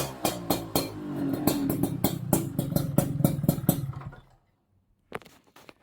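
Honda Smile's 110cc four-stroke single-cylinder engine running through its exhaust with sharp, evenly spaced exhaust pulses, revving up slightly, then cutting out about four seconds in. A couple of short knocks follow near the end.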